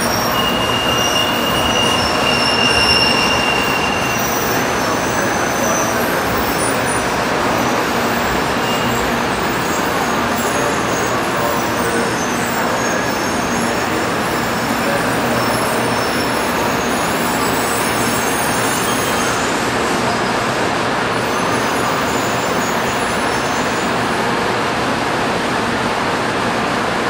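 N700 series Shinkansen train rolling slowly along a station platform as it pulls in to stop: a steady rush of running and wheel noise. A thin high-pitched whine sounds over it in the first few seconds.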